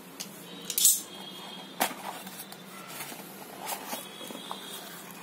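Scissors cutting through the seal sticker on a small cardboard box: a short, sharp scrape about a second in, then a couple of clicks and a soft rustle as the cardboard flaps are pulled open.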